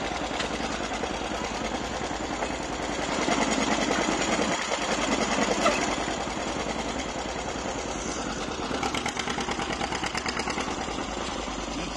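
Antique farm tractor engine working under load as it pulls a weight sled, its exhaust pulsing in a fast, even rhythm, a little louder between about three and six seconds in.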